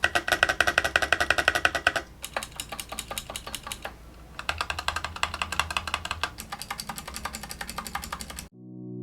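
Rapid typing on a mechanical keyboard, a fast run of sharp key clicks with short lulls. Near the end the typing cuts off and calm, sustained music takes over.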